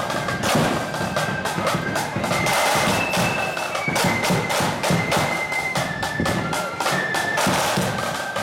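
Marching band playing: a high, quick melody of short held notes over heavy, steady drumbeats.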